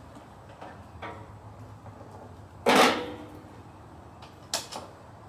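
Objects being handled on a workbench: light clicks and knocks, with one loud knock a little past halfway that fades over about half a second.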